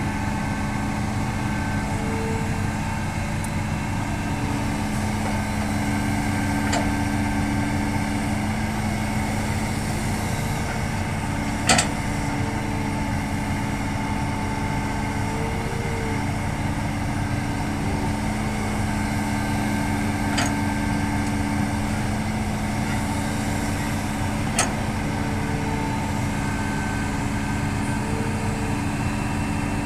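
Hitachi excavator's diesel engine running steadily under working load, with hydraulic tones that rise in and drop out as the machine works. A few sharp knocks cut through, the loudest about twelve seconds in.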